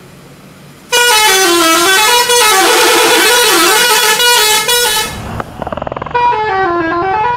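A bus 'telolet' horn, a multi-tone musical horn, plays a loud warbling tune whose notes swoop up and down. It starts about a second in, breaks off briefly around five seconds in over a low rumble, and starts the tune again near the end.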